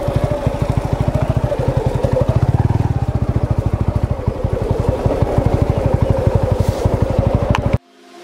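Motorcycle engine running at low road speed, a steady rapid chugging with a wavering whine. It cuts off abruptly near the end.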